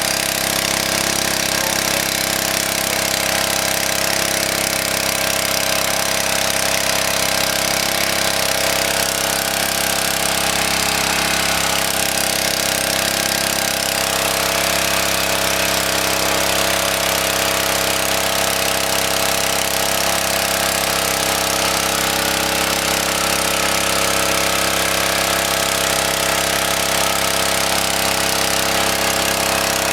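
Small engine-driven water pump running steadily at constant speed.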